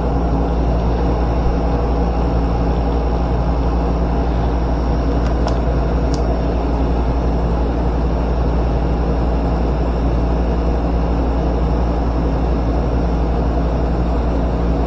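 Steady, even machine hum with a rush of noise, like a motor or fan running close by. Two faint short ticks come about five and six seconds in.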